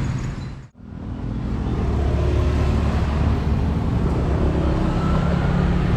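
Road traffic: motorcycle and truck engines running past. The sound dips out and comes back under a second in, then the low engine rumble holds steady.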